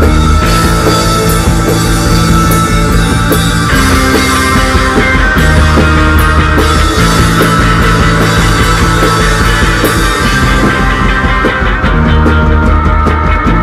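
Post-punk band playing loud, with distorted electric guitars and drums: held low notes that change every couple of seconds under a wash of cymbals, which thins near the end so that single drum strikes stand out.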